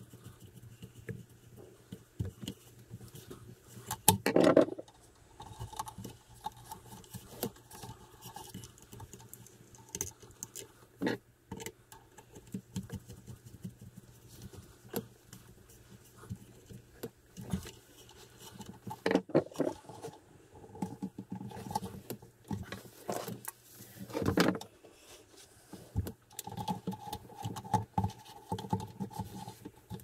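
Irregular clicks, taps and rattles of hand tools and small electrical parts being handled during wiring work, with a couple of louder knocks, one about four seconds in and one later. A faint low steady hum runs underneath.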